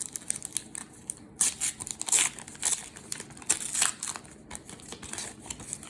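Trading card pack wrapper being torn open and crinkled, a run of sharp crackling rustles that is loudest in the middle.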